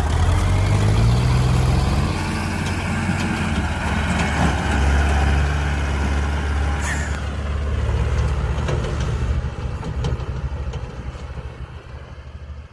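Tractor diesel engines running under load as they haul trolleys of sand, with a steady low drone. There is a brief hiss about seven seconds in, and the sound fades near the end.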